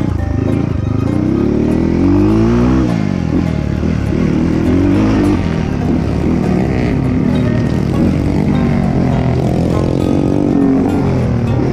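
Dirt bike engine revving up and down as it is ridden, the pitch rising and falling with the throttle.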